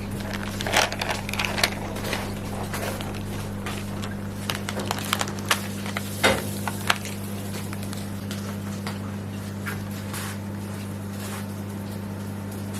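Microwave oven running with a steady low hum, with scattered crackles and pops over it, thickest in the first half and a few sharper pops about six to seven seconds in.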